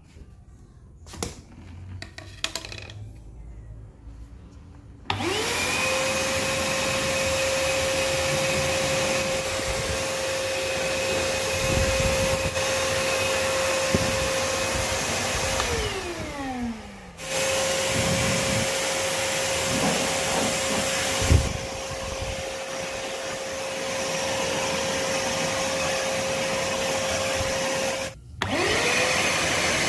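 Fisch MB10LT wet and dry vacuum cleaner switched on about five seconds in, after a few faint clicks. It runs with a steady whine over a rush of air. About halfway through it is switched off and its pitch falls as the motor winds down, then it starts again. Near the end it is switched off and on once more.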